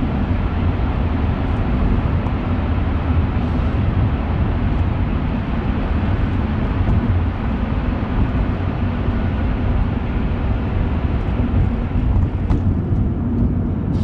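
Steady road and engine noise heard inside a car cabin at about 80 km/h, driving through a road tunnel: a continuous low rumble of tyres and engine.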